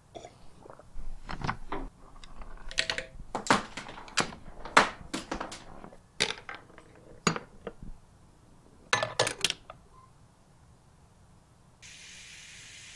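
Chain-reaction contraption at work: a run of small clinks, taps and knocks of hard objects such as balls, metal and glass, irregularly spaced and a few in quick clusters. Near the end a steady gas hiss starts abruptly, the burner under the beaker being turned on.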